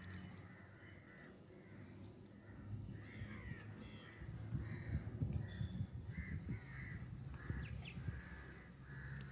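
A bird calling over and over, short similar calls a little under two a second, over low rustling and knocks from handling close to the microphone.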